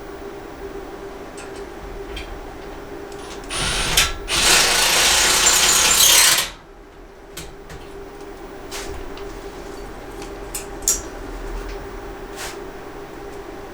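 Power drill running in one burst of about three seconds, briefly stopping and restarting near its start, with scattered light clicks and knocks of parts being handled afterwards.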